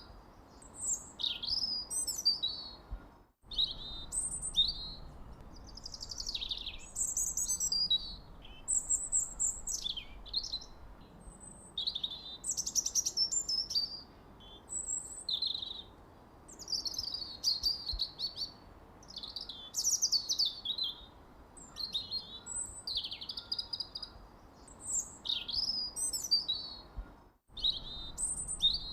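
Songbirds chirping and twittering in quick, high-pitched, mostly falling notes, several birds overlapping almost without pause over a faint steady hiss. The sound cuts out completely for a moment twice, a few seconds in and near the end.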